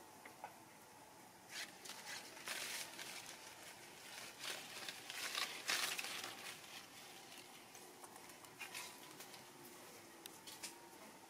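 Faint rustling and crackling of leaves and twigs as a baby macaque climbs through tree branches, in uneven bursts that are busiest in the first half, then a few scattered crackles.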